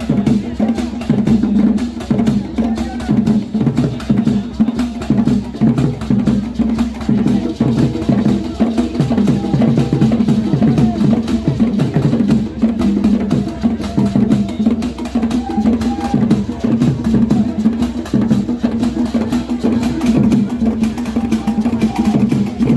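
Percussion-driven music: fast, dense drumming with sharp, wood-block-like strikes.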